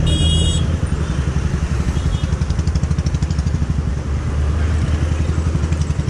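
Motorcycle engine running at low revs in slow stop-and-go traffic, a steady low rumble. A brief high-pitched horn beep sounds right at the start.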